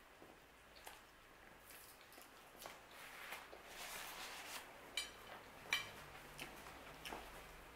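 Faint eating sounds of a woman biting into and chewing a slice of pizza, with a paper napkin being handled. Two sharp light clicks come about five and six seconds in.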